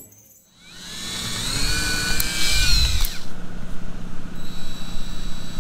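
DeWalt cordless drill drilling into a thin black pad. Its motor whine builds and wavers in pitch, breaks off sharply about three seconds in, then runs on more steadily.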